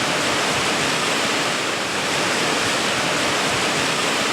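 Waterfall and fast river rushing close by: a steady, even rush of falling and flowing water.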